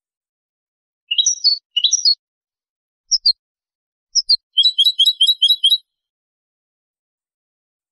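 European goldfinch singing in a clean recording with no background noise: short groups of high twittering notes about a second apart, then a quick trill of about eight notes around five seconds in, with complete silence between phrases.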